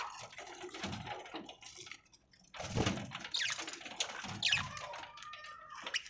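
Budgerigars feeding: a rapid, irregular clicking of beaks pecking and cracking seed, mixed with short high chirps from the flock. The sound cuts out for about half a second about two seconds in.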